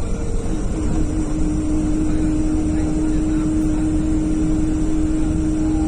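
Strong wind buffeting the microphone with a constant low rumble and rush. About a second in, a single steady tone comes in and holds without a break.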